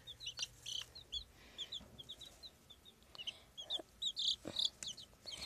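Young chicks peeping: many short, high chirps in quick succession, with a few faint knocks.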